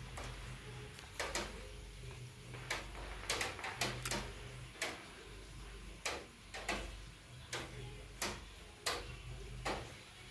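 A dog's claws clicking on a hard floor: sharp, irregular ticks, roughly one or two a second, over a faint low hum.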